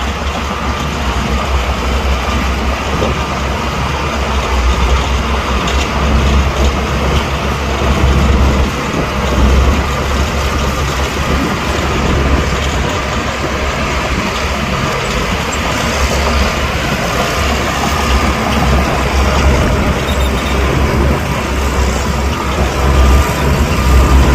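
Heavy diesel earthmoving machinery running under load, a loud, steady low rumble with mechanical clatter, getting a little louder near the end.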